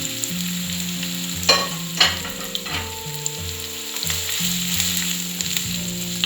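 Chopped onions, green chillies and curry leaves sizzling in hot oil in a pan while being stirred, with two sharp knocks of the spoon against the pan about a second and a half and two seconds in.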